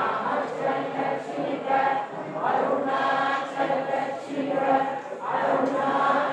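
A group of men chanting Vedic mantras together in unison, with held, steady tones.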